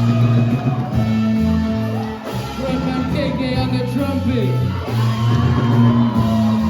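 Live band playing rock music, with a singer's voice over sustained bass notes.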